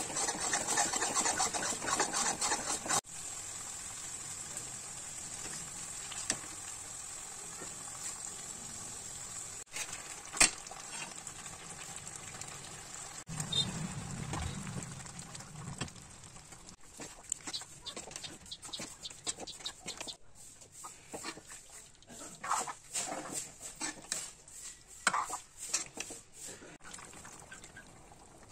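A steel spoon stirs and scrapes thick curry masala in a metal kadhai over steady sizzling. A dull splash about halfway through is the chicken pieces going into the gravy, and scattered clinks and knocks of the spoon follow near the end.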